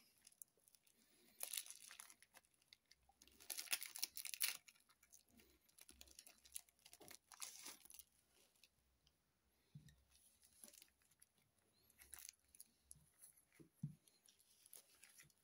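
Thin plastic resealable card bags crinkling and rustling as they are handled, in several short scattered bursts with quiet gaps between.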